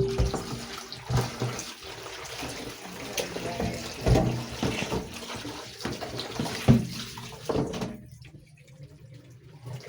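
Tap water running into a sink while onions are washed under it, with a few knocks of handling; the water stops about eight seconds in.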